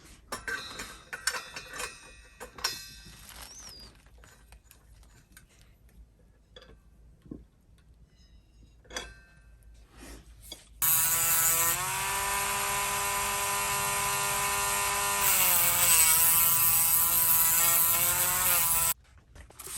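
Light clicks and taps from handling, then a small high-speed rotary power tool starts abruptly and runs for about eight seconds. Its whine sags briefly twice under load, cleaning up the header pipes before welding, and it cuts off sharply.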